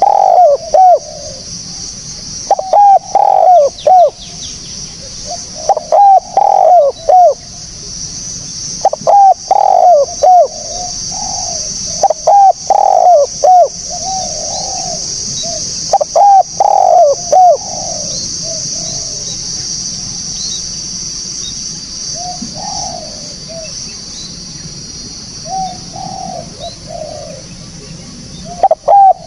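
Spotted dove (tekukur) cooing: phrases of several low coo notes repeating about every three seconds, becoming fainter and sparser in the second half. A steady high hiss sits behind the calls.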